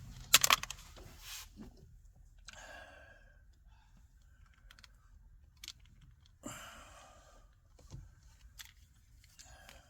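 Small plastic trim plugs being pried out of a car door trim panel: a few sharp plastic clicks, loudest just after the start, and short scraping and rustling sounds of handling the trim.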